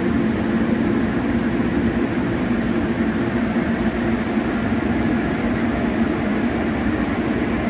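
Steady loud drone of a running EMD 645 two-stroke marine diesel generator, heard in its engine room.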